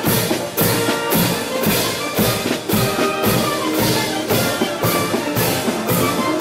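Marching wind band playing a march on clarinets, flutes, saxophones and brass, with percussion struck on the beat about twice a second.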